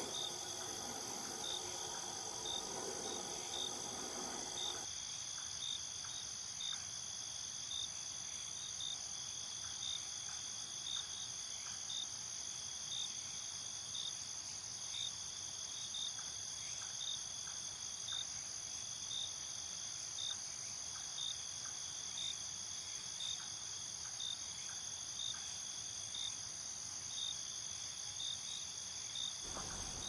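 Crickets chirping: a steady high trill with a sharper chirp about once a second. A lower buzz sounds underneath at first and stops about five seconds in.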